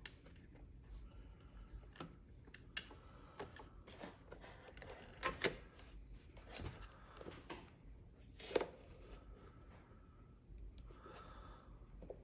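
Hand tools and metal parts clicking and knocking at irregular intervals as an ATV's battery cable is disconnected, with a few sharper clicks spread through it.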